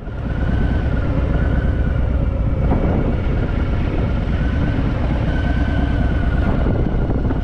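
Harley-Davidson Fat Boy's V-twin engine running steadily with a deep rumble.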